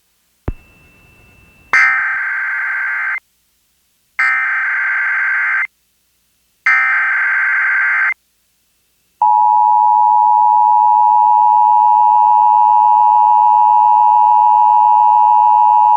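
Emergency Alert System test over FM radio: three bursts of SAME header data, a buzzy digital warble each about a second and a half long with about a second between them, then the steady two-tone EAS attention signal (853 and 960 Hz) starts about nine seconds in and holds.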